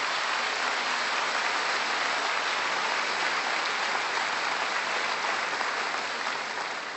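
Large audience in a theatre applauding, a dense steady clapping that starts to die away near the end.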